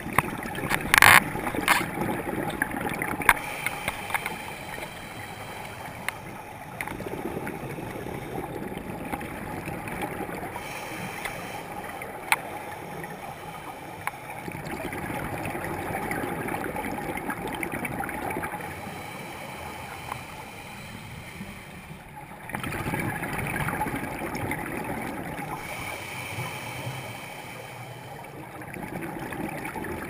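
Underwater camera recording of a diver's scuba breathing: the regulator and rising exhaled bubbles give a continuous gurgling hiss that swells in stretches every several seconds. A few sharp knocks near the start.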